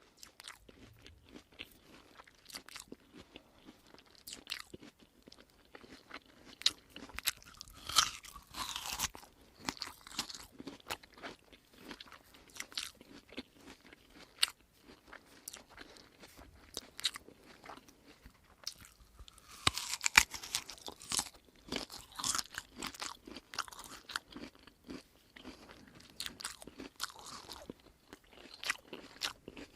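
A person chewing crunchy food, with an irregular run of crisp crackling crunches. Louder bursts of crunching come about eight and twenty seconds in.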